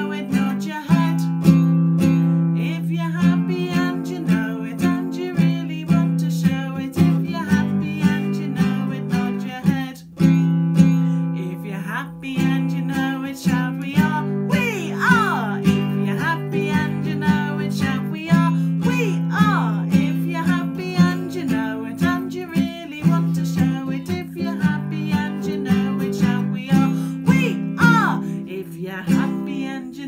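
Nylon-string classical guitar strummed in a steady rhythm, with a woman singing over it at times, including a few sliding rise-and-fall vocal sounds about halfway through and near the end.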